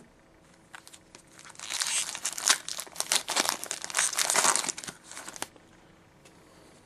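Foil trading-card pack wrapper crinkling and tearing as it is ripped open by hand, a dense crackle lasting about four seconds and stopping suddenly.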